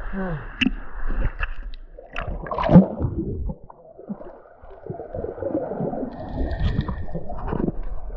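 Snorkeler splashing and breathing through a snorkel at the surface, then a loud splash about three seconds in as he dives under. After that comes the muffled rushing and gurgling of water and bubbles heard underwater.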